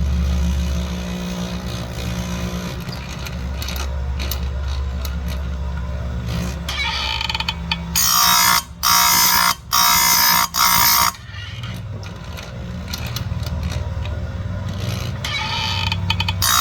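Electric chainsaw-chain grinder running with a steady motor hum. About halfway through, the wheel grinds cutter teeth in four short, bright passes in quick succession, each under a second or so, and another pass starts near the end.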